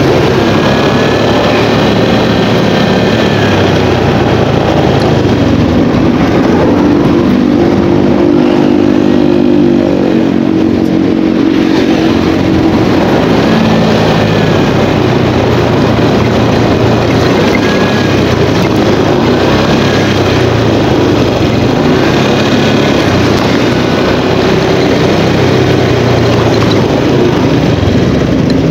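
Motorcycle riding through city traffic: a loud, steady rush of engine and wind noise, with a clearer engine drone standing out from about six to twelve seconds in.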